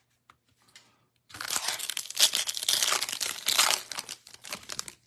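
A foil trading-card pack wrapper being torn open and crinkled by hand: about a second in, a loud, dense crackle starts, runs for about two and a half seconds and dies away near the end.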